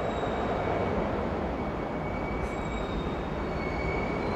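Steady city background noise: an even hiss and low rumble, with faint thin high-pitched whines that come and go.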